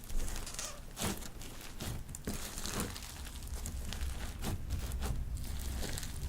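Glossy slime with foam beads being kneaded and pressed by hand, giving irregular crackles and crunchy pops over a low steady hum.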